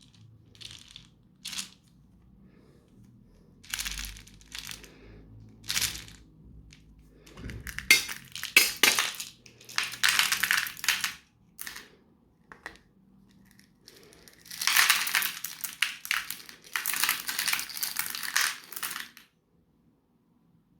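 Something being crushed in a meat grinder: irregular bursts of crunching and crackling, in two long loud spells in the second half.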